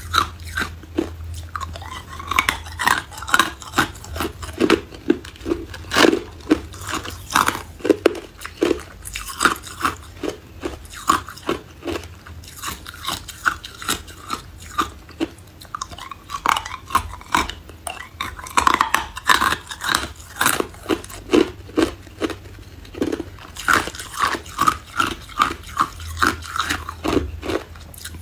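Close-up crunching of ice being bitten and chewed: a quick run of sharp, irregular crunches, several a second, throughout.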